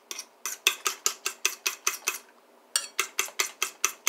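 Metal fork beating eggs in a bowl, clinking against the sides in a quick steady rhythm of about six strokes a second, with a brief pause a little past halfway.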